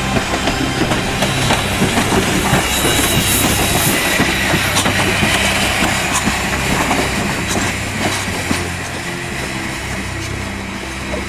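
Spokane, Portland & Seattle 700, a 4-8-4 steam locomotive, rolling slowly past with its passenger cars, steel wheels clicking over the rail joints, with a hiss of steam in the middle. The sound eases off toward the end as the train moves away.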